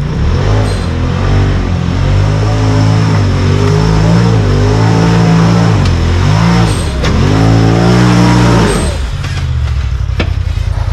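Side-by-side UTV engine revving hard and unevenly, its pitch rising and falling with the throttle. About nine seconds in it drops back to a steadier, lower pulsing run, with a few sharp knocks along the way.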